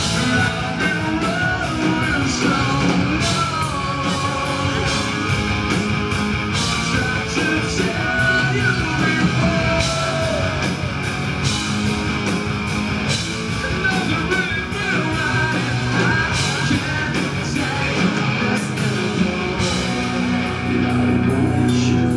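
Live rock band playing a song: electric guitars, bass and drums with frequent cymbal crashes, under a singer's voice. It is loud and steady throughout.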